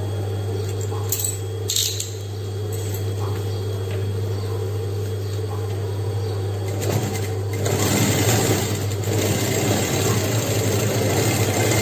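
Sewing machine motor humming steadily, with a few snips of scissors cutting the thread about a second in. From about eight seconds in, the machine stitches through leather at a shortened stitch length.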